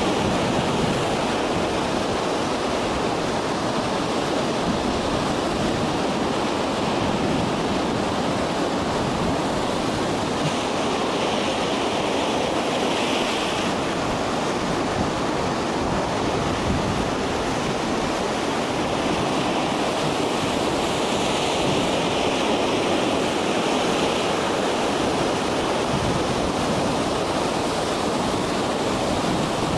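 Heavy storm surf breaking and rushing, with wind on the microphone: a steady wash of noise whose hiss grows brighter twice.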